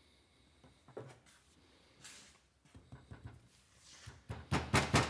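A few faint clicks and knocks of handling, then, about four seconds in, a fast run of sharp hammer taps, about five a second, driving a new front axle seal into a John Deere 4300's cast-iron front axle housing.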